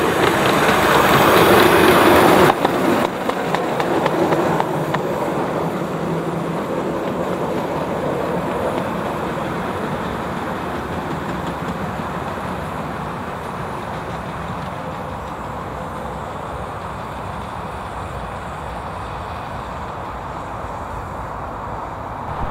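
Miniature 7¼-inch gauge steam train running on its track. It is loudest as it passes close in the first couple of seconds, then its rumble fades slowly as it draws away.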